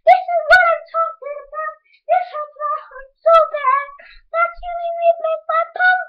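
A young child singing unaccompanied in a high voice, in short held phrases with brief silent gaps between them.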